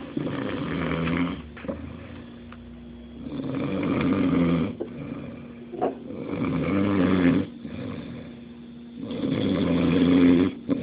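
Someone snoring deeply and rhythmically: four long, loud snores about three seconds apart, with quieter breaths between them.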